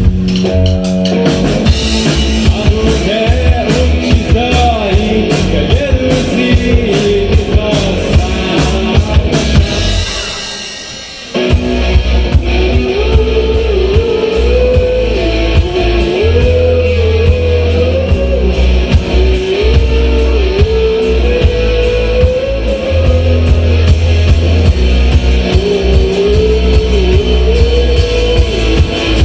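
Rock band music with guitars and a drum kit. The band drops away briefly about ten seconds in, then comes back in full with a wavering melody line over a heavy bass.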